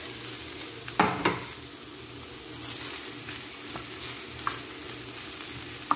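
Rice, vegetables and sausage being stirred and turned with a wooden spatula in a frying pan over a soft sizzle, with two sharp knocks of the spatula against the pan about a second in and a few lighter ticks later.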